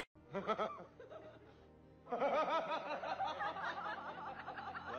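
Laughter: a short burst of snickering just after the start, then a longer run of rapid, repeated chuckling from about two seconds in.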